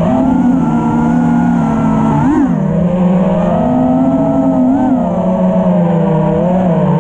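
Brushless motors and propellers of a 5-inch FPV freestyle quadcopter whining, heard from the camera on board: several close tones that hold steady, with two short upward swings in pitch as the throttle is punched, about two and a half and five seconds in.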